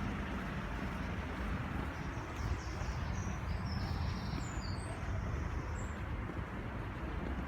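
Steady low rumble of a Merseyrail electric train, with a scatter of short, high chirping notes at different pitches about two to six seconds in.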